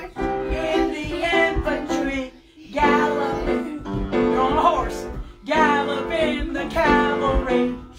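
A lively children's Sunday-school song, sung with instrumental accompaniment, in phrases broken by short pauses.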